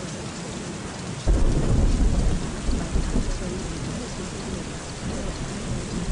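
Steady rain with a roll of thunder that breaks in suddenly about a second in and rumbles on unevenly.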